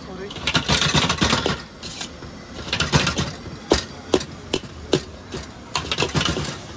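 Knife chopping on a cutting board in irregular, sharp strokes, the food cut into big pieces rather than fine, over background voices.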